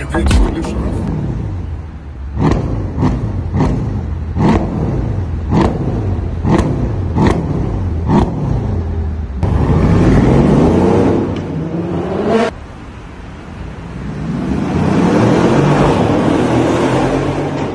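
Mercedes-Benz CLS 63 AMG's V8 exhaust. First comes a quick series of about a dozen short revs with sharp cracks, then a long rising rev that cuts off suddenly. Last, the car accelerates hard past in a tunnel.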